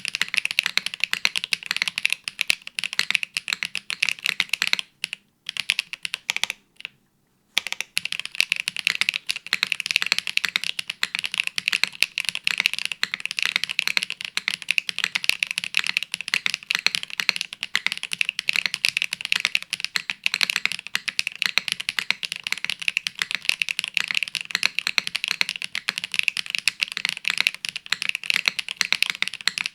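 Fast continuous typing on a custom mechanical keyboard: HMX Grape Soda switches under GMK Norse keycaps on an aluminium plate, top-mounted with no foam. The typing stops briefly twice, about five and seven seconds in.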